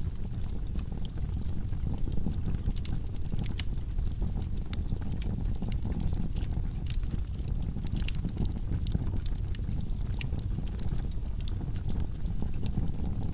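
Wood logs burning in a fireplace: a steady low rumble of flames with frequent sharp crackles and pops.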